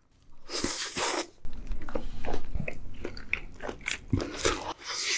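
Close-up mouth sounds of a bite into a salmon sushi roll wrapped in lettuce: a noisy crunch lasting about a second near the start, then irregular, wet chewing with many small clicks and smacks.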